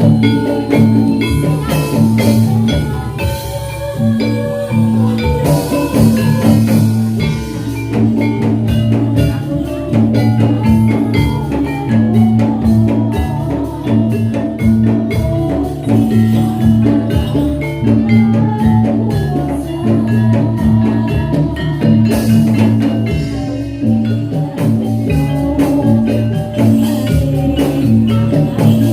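Javanese gamelan music accompanying a jathilan and gedruk dance: struck metallophones ringing in a steady, repeating pattern over drums.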